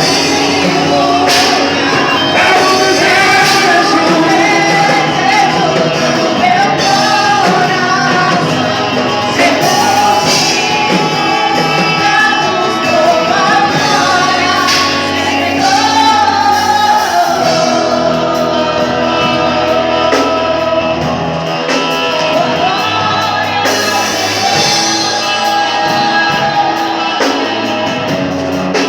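Live worship music: a singer's voice carrying a slow melody over sustained band chords and bass, in a large hall.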